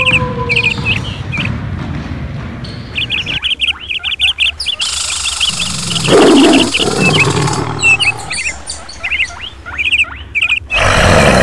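Small birds chirping in quick repeated series. About halfway through comes a loud, low sound, and near the end a short burst of noise.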